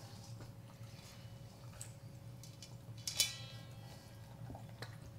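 Hands rubbing seasoning into a raw whole chicken in a stainless-steel mixing bowl: faint handling noise with small clicks. About three seconds in, the metal bowl is knocked once and rings briefly.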